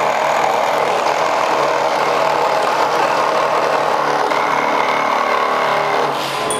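Two cordless 12-volt reciprocating saws, a DeWalt DCS312B and a Milwaukee M12 Fuel Hackzall, running together at full speed and sawing through 16-penny nails set in a 2x4. The noise is steady and drops off about six seconds in as the cuts finish.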